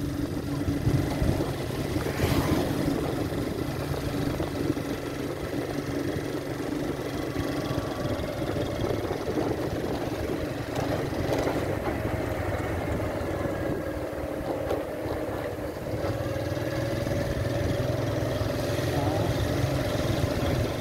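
Small motorbike engine running steadily while riding along a road, easing off slightly about two-thirds in and picking up again near the end.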